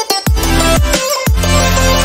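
Background electronic music with a heavy bass line and repeated falling pitch sweeps.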